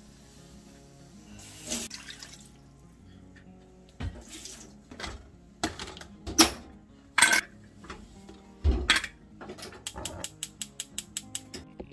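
Stainless steel pressure cooker lid set on the pot and locked shut, with several sharp metallic clanks and scrapes, then a quick even run of about a dozen clicks near the end. Background music plays underneath.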